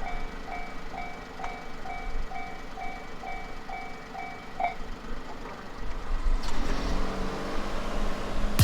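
Japanese railway level crossing's electronic warning bell ringing, a two-tone ding about two and a half times a second, which stops about halfway through. A low rumble builds near the end.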